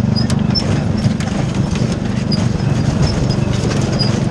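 Riding lawn mower engine running steadily while the towed metal wagon rattles and knocks over rough ground.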